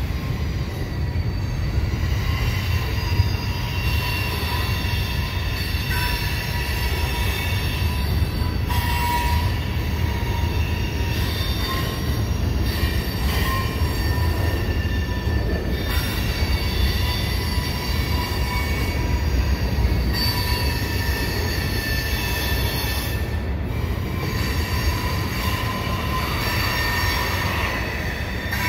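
Freight train of loaded gondola cars rolling slowly over a steel girder bridge: a steady low rumble of wheels on rail with squealy, shrill wheel squeal, several high tones ringing on and off as the cars pass.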